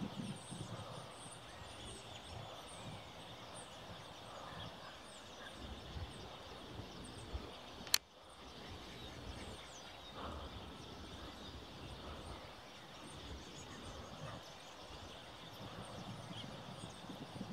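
Outdoor ambience of many small birds chirping over a faint low background rumble, with one sharp click about eight seconds in.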